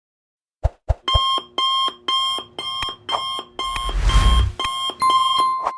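Countdown timer's alarm going off at zero: two clicks, then loud electronic alarm-clock beeping in rapid pulses of about two a second. A noisy burst with a low thump comes about four seconds in, and the beeping stops near the end with one held tone.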